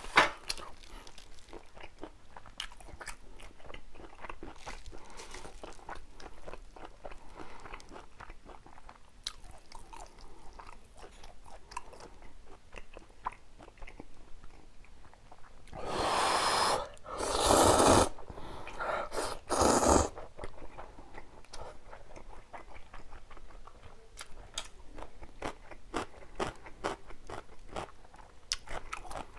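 Close-miked chewing and biting, with many small wet mouth clicks. About halfway through come several louder noisy stretches of a few seconds in all.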